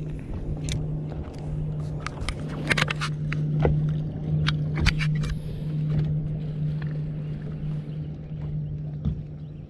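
A boat's motor humming steadily at a low pitch, with a string of short sharp clicks and knocks in the first half.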